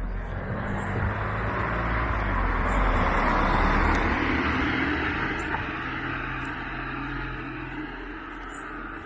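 A car passing close by on the road, its engine and tyre noise swelling to a peak about three to four seconds in, then fading as it drives away.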